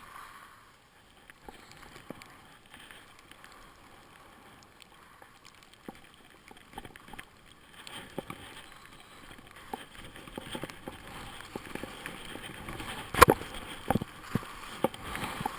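Skis sliding and scraping over snow with a hiss that grows louder from about halfway, mixed with scattered clicks and knocks from skis, poles and gear. A sharp knock about thirteen seconds in is the loudest sound.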